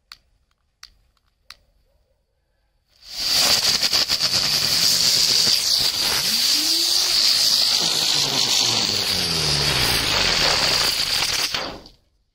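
Two butterfly fireworks spinning and spraying sparks: three short clicks, then about three seconds in a loud steady hiss starts, with a whirring that rises and falls in pitch as they spin. It runs for about nine seconds and cuts off suddenly as they burn out.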